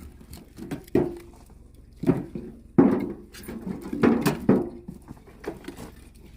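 Pieces of split oak firewood knocking and clunking as they are loaded by hand: a handful of irregular wooden knocks a second or so apart, with a cluster in the middle.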